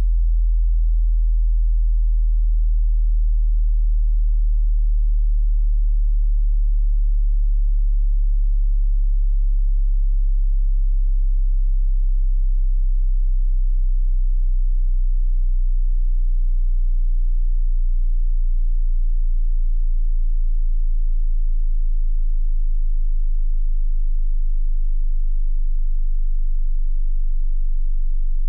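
Hearing-test sine tone sweeping slowly downward in the deep bass, a steady pure hum under about 60 Hz that keeps sinking in pitch toward the bottom of the audible range.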